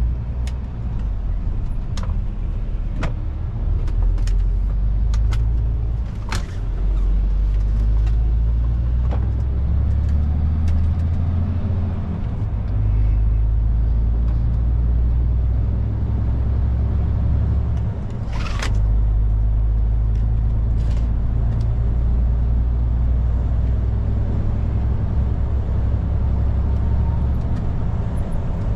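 MAN TGX truck's diesel engine heard from inside the cab, pulling steadily as the truck accelerates, with brief drops in engine note about five seconds in, near the middle and about two-thirds through as it changes gear. Scattered sharp clicks sound in the cab, and a short hiss comes with the last gear change.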